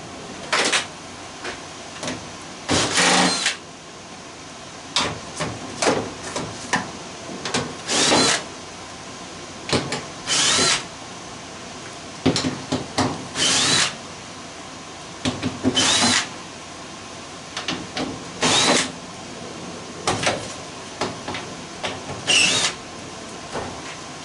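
Power drill run in short bursts, about every two to three seconds, removing screws from a furnace's sheet-metal cabinet, each burst starting with a brief rising whine. Small clicks and knocks of metal being handled come between the bursts.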